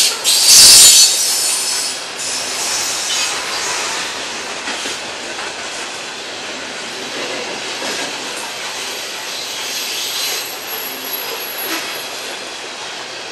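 Loaded coal hopper cars rolling past on steel rails: a steady rumble of wheels with rhythmic clatter, and a thin, high wheel squeal near the end. A very loud burst of noise comes in the first second.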